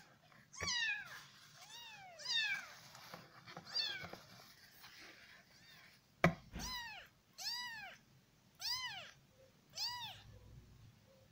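Weeks-old kitten meowing over and over in short, high, rising-and-falling cries, about eight of them with a pause in the middle. One sharp knock sounds about six seconds in.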